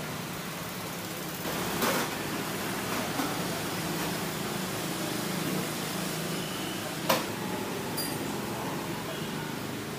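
Steady background noise of a small shop, with a louder rush about two seconds in and a single sharp clack about seven seconds in.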